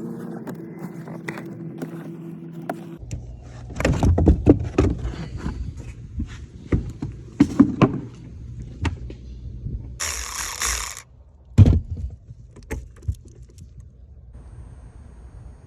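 Metal tools and parts clinking and knocking, a series of sharp clicks with one louder knock. A steady hum cuts off about three seconds in, and there is a short hiss about ten seconds in.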